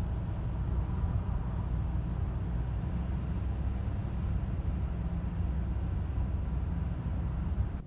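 Steady low rumble of a car's tyre and road noise, heard from inside the moving car's cabin.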